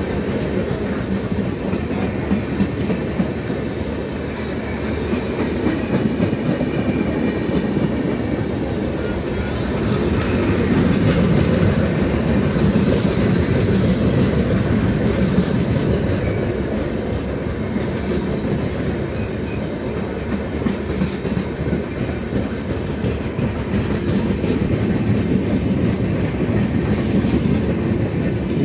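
Express train passenger coaches rolling past close by, with a steady loud rumble and clatter of wheels on the rails that swells a little midway. A few brief high wheel squeals cut in now and then.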